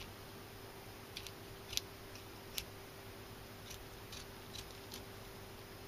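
Kitchen scissors snipping through the scaly skin of a tilefish. The snips are faint, short and irregular, about nine of them, the sharpest a little under two seconds and about two and a half seconds in.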